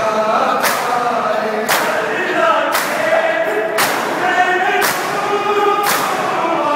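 A crowd of men doing matam, beating their chests in unison with open palms: six sharp slaps, about one a second. Between the slaps, men's voices chant a lament.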